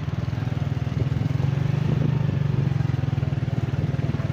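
Motorcycle engine running steadily under way, heard from the bike itself, with fast, even firing pulses.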